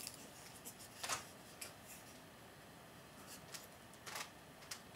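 Faint scattered clicks and rustles of hands handling string on a small wooden craft-stick trebuchet model; the clearest tap comes about a second in.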